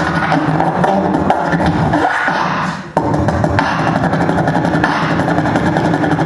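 Five beatboxers performing together: layered vocal percussion over a steady sung bass tone. The sound briefly drops away just before three seconds in, then comes back abruptly at full strength.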